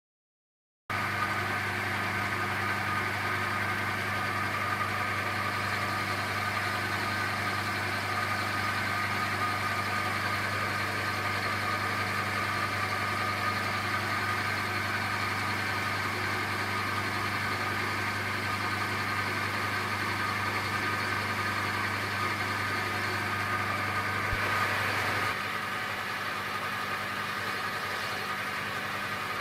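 A machine running steadily, with a low hum and several steady higher tones, starting about a second in. The low hum stops about four seconds before the end while the higher tones carry on.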